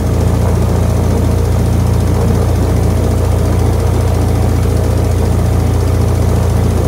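Boat engine running steadily at speed, heard from on board: a deep, even drone with no change in pitch or level.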